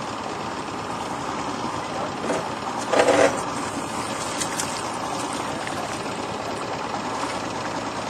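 Boat motor idling steadily, with a brief louder sound about three seconds in.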